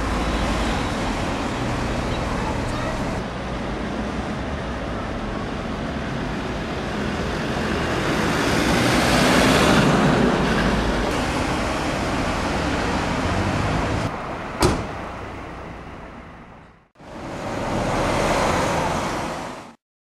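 Street traffic: cars and vans passing close by with a steady rush of tyre and engine noise, swelling louder about ten seconds in as a car goes by. A single sharp click comes near fifteen seconds. The sound then fades out, returns briefly, and cuts off.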